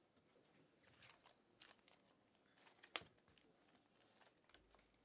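Faint rustling and sliding of a stack of trading cards being flipped through by hand, with one sharp click about three seconds in.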